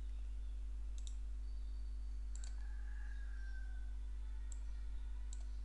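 A few faint, sharp computer mouse clicks, about four, spread out over a steady low electrical hum.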